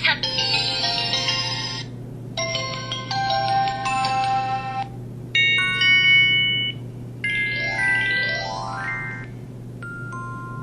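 Motorola StarTAC 2004 SE mobile phone playing a series of short electronic ringtone melodies through its speaker, about four in turn with brief gaps between them, one a quick rising run of notes. A low steady hum lies underneath.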